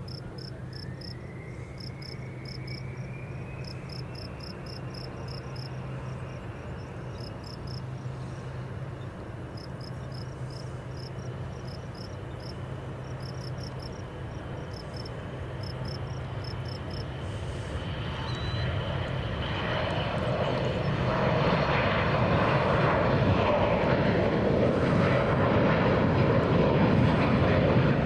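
Private jet's engines during takeoff: a whine that climbs in pitch over the first few seconds and then holds steady, with the engine roar swelling much louder over the last ten seconds. Crickets chirp in regular pulses throughout.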